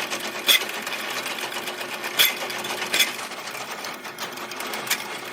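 Motorized drain-cleaning machine running, its spinning cable clattering rapidly in the sewer main line, with several louder knocks scattered through, while it cuts through roots blocking the line.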